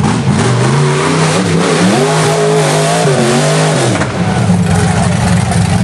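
Rock bouncer buggy's engine revved hard, its pitch climbing and falling in bursts, held high for a couple of seconds and then dropping back about four seconds in.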